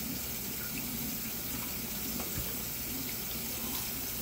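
Water draining out of a stainless steel kitchen sink basin after a long soak, a steady rushing hiss with a few faint ticks.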